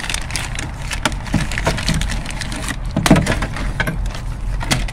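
Clear plastic moisture sheet being peeled off a car's inner door panel, crinkling and crackling with irregular sharp clicks as it tears away from the black sealant glue.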